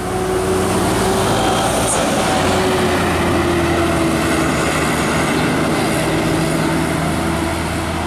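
Tour bus diesel engine running as the bus drives past, a steady engine drone whose pitch sinks a little as it goes by.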